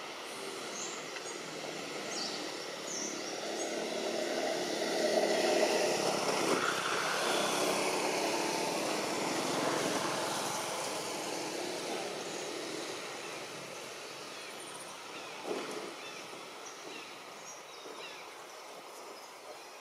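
A motor engine passing by, growing louder over the first few seconds, at its loudest around the middle, then slowly fading away.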